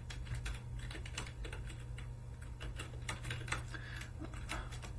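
Typing on a computer keyboard: irregular quick key clicks.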